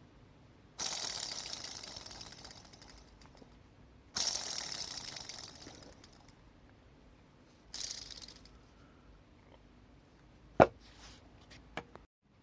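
Honda EX500 engine pulled over three times on its recoil starter, each pull spinning it with a gritty, rasping rattle that fades as it coasts to a stop, the third pull shorter: the noise of a crankshaft bearing whose inner race has flaked and broken up. A sharp knock and a few small clicks follow near the end.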